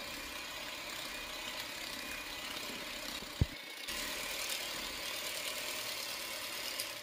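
Electric hand mixer running steadily, its beaters whirring through a thick whipped cream, condensed milk and cocoa mixture in a glass bowl. A single sharp click about three and a half seconds in.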